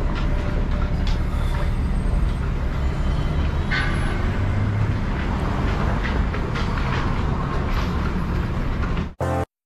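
Downtown street traffic noise: a steady low rumble of passing vehicles with a few faint clicks, cutting off abruptly near the end.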